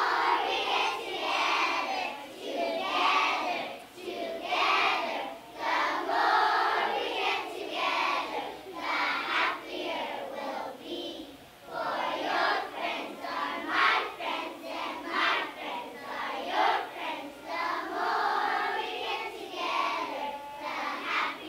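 A class of transitional-kindergarten children singing a song together in phrases.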